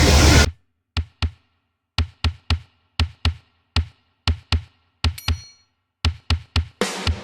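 Music: a sparse beat of single and paired drum hits over silence, starting after a sudden cut, with the fuller track coming in near the end.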